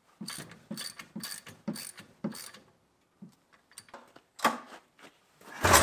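1976 John Deere 440 snowmobile's two-stroke twin being pulled over on its recoil starter, a string of ratcheting clicks as the rope is pulled. Near the end the engine, primed with a squirt of starting fluid after sitting for years, fires and runs in a sudden loud burst.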